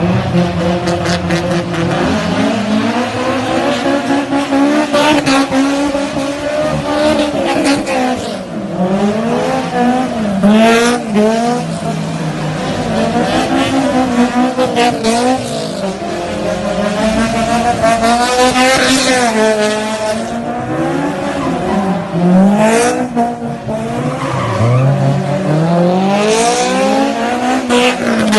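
Honda car engine revving high and dropping again and again, with tyres squealing in bursts as the car slides under wheelspin.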